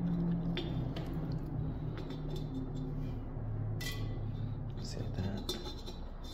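Rocks being set into a glazed ceramic planter, with a few sharp clinks of stone against the pot and against each other, the clearest about four seconds in. Underneath runs a low, steady hum of held tones.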